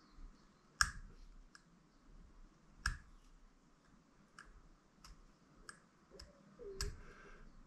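Hobby-knife blade scraping and trimming at the glued camera mount, giving about nine short sharp clicks at uneven intervals, the loudest about a second in.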